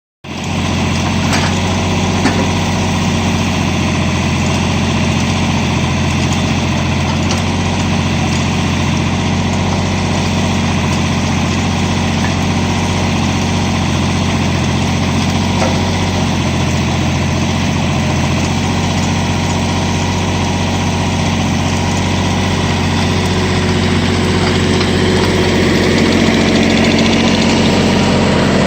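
A 22-horsepower compact tractor's engine running steadily while driving the hydraulics of an LW-5 backhoe attachment. It gets a little louder near the end.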